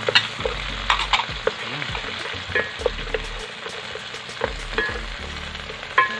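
Browned pork pieces sautéing with garlic, onion and tomato in oil in a non-stick pan, sizzling steadily, stirred with a wooden spatula that clicks and knocks against the pan at irregular moments.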